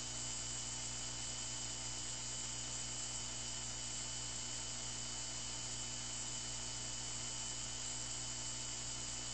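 Radio dead air, with the station taken off the air: only a steady hiss with a faint, even hum underneath and no programme audio.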